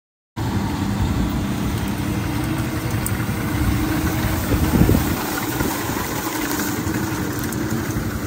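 Tractor engine running steadily while pulling a Krone Swadro twin-rotor rake that is rowing up mown grass, with a brief louder swell about five seconds in.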